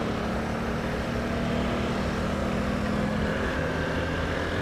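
Motorcycle engine running while riding, over steady wind and road noise; the engine's steady note drops lower about three and a half seconds in.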